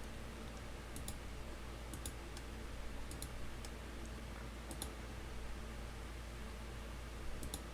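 Faint, scattered clicking of a computer mouse, some clicks in quick pairs, over a low steady hum.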